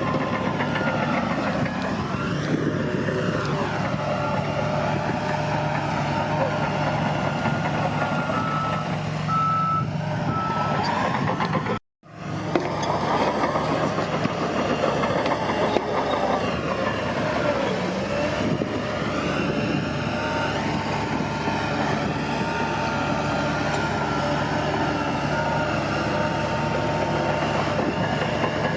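Bulldozer's diesel engine running steadily, with a reversing alarm beeping at times. The sound cuts out for a moment near the middle.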